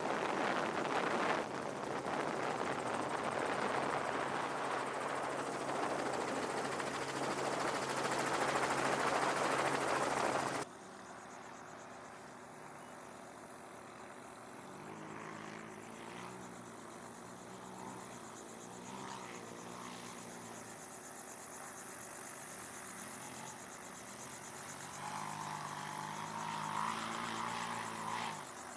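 Loud rushing engine and wind noise over a steady low hum. About ten seconds in it cuts abruptly to a quieter engine note that rises and falls in pitch several times, like a vehicle accelerating and backing off.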